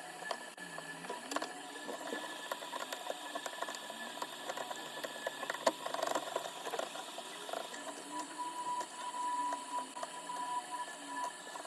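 Small repair tools clicking and scraping on an iPhone 12 Pro Max's cracked back glass, in many quick, irregular taps and scratches. A thin steady tone runs for about three seconds in the second half.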